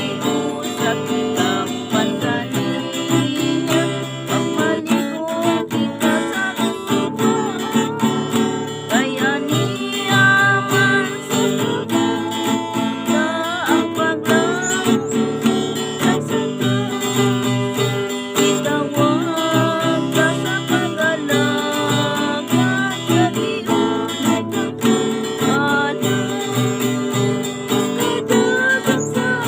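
Acoustic guitar music, strummed and plucked in a steady accompaniment.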